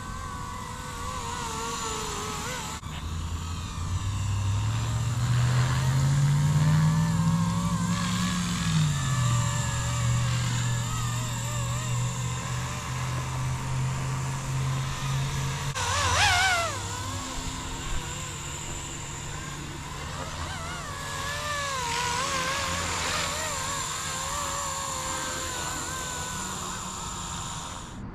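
Blade CP235 electric collective-pitch RC helicopter's motor and rotor running, the hum rising in pitch over a few seconds, dropping back and then holding steady, with shifts later on. A brief high falling sound cuts in at about 16 seconds.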